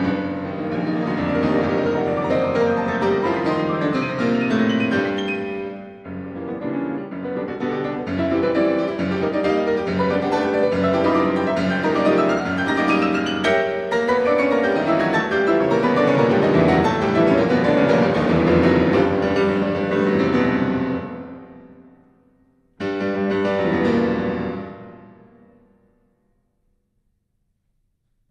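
Solo piano music, many notes at a brisk pace. About three-quarters of the way through it fades out, a short last phrase rings and dies away, and the music stops for the final couple of seconds.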